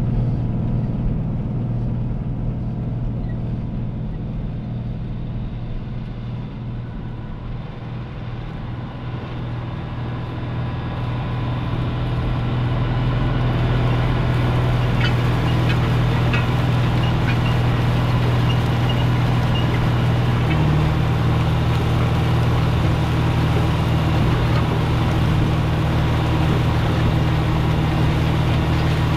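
Caterpillar 3208 V8 diesel in a White 4-225 four-wheel-drive tractor running steadily under load, pulling a tandem disc harrow whose blades cut through corn stubble and soil. It is somewhat quieter for the first few seconds, then grows louder with more hiss from about halfway.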